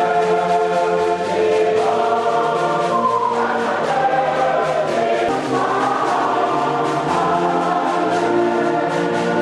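A choir of many voices singing a church hymn in long held notes, the chord changing every second or two.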